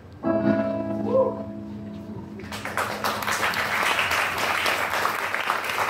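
A last plucked-string chord rings out and fades, then audience applause breaks out about two and a half seconds in and carries on.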